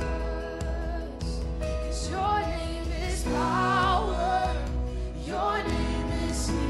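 Live worship band playing a contemporary worship song: sustained keyboard chords with electric guitar, and singing voices coming in about two seconds in.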